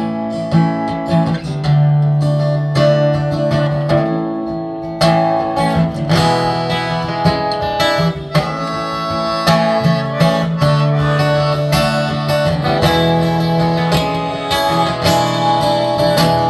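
Acoustic guitar strummed in steady rhythmic chords: the instrumental intro of a song, with no singing yet.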